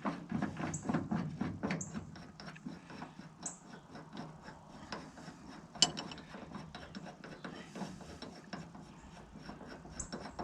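Ratchet clicking in quick, even strokes as the screw of a Ford door hinge pin removal tool is wound to draw out a hinge pin. The clicks are strongest at first and fainter later, with one sharper metal clink about six seconds in.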